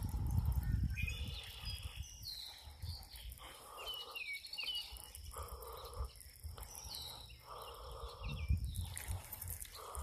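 Birds calling: short rising and falling chirps, with a few longer, lower calls repeated every second or so. Low wind rumble on the microphone in the first second.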